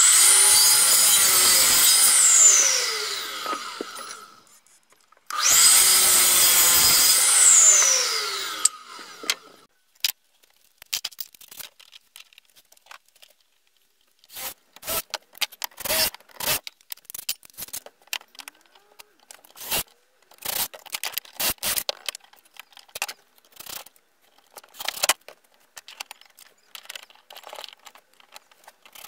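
Metabo KGS 254 sliding compound mitre saw making two short crosscuts through an inch-by-three hardwood board. Each time the motor starts up, runs through the cut, and the blade spins down with a falling whine. After that come scattered knocks and clicks of wood and metal as the new wooden vice jaws are clamped and fitted.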